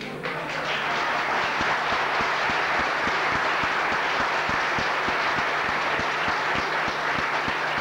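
A hall full of deputies applauding: many hands clapping together, building up within the first half second and then holding steady.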